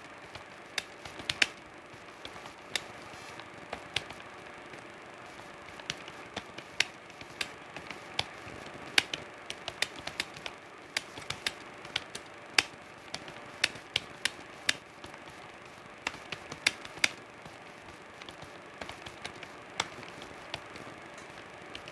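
Computer keyboard keys clicking at an irregular pace, some strokes sharper than others, over a steady low hiss and faint hum.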